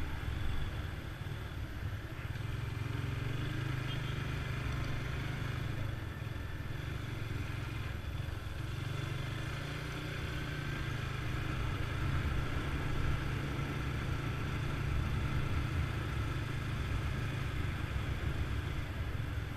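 Motorcycle running steadily while being ridden, its low engine rumble even throughout.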